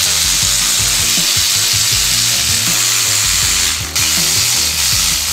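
Background music with a bass line stepping from note to note, under a loud steady hiss that drops out briefly about four seconds in.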